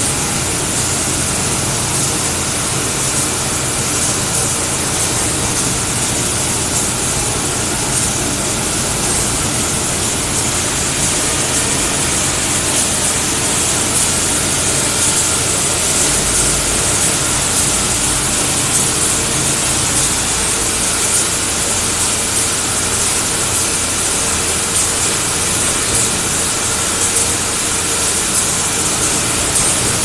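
Water pouring steadily from a waterfall basin faucet's open spout over a constant machine hum from the test rig.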